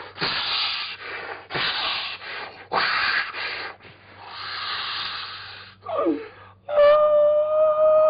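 A mimicry artist making vocal sound effects: about five loud, breathy hissing and snorting bursts, a short falling cry about six seconds in, then a steady held whistle-like tone near the end.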